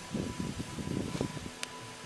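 Spice paste, black peppercorns and star anise frying in a hot wok: an irregular sizzle and crackle, with a single sharp click about one and a half seconds in.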